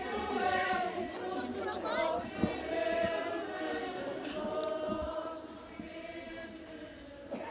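A crowd of people singing a religious hymn together, many voices in one sustained melody, growing quieter about two-thirds of the way through.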